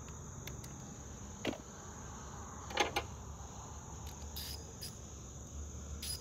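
Steady high-pitched chorus of insects, with a few sharp metallic clinks of hand tools being handled, the loudest two close together near the middle.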